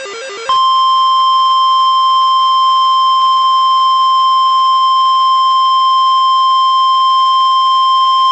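NOAA Weather Radio 1050 Hz warning alarm tone: one loud, steady, unbroken beep that starts sharply about half a second in and holds at a single pitch. It is the signal that a warning announcement follows, here a severe thunderstorm warning.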